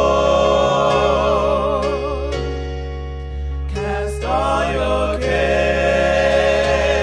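Gospel music: singing with strong vibrato over sustained keyboard chords, with a brief break in the singing about halfway through.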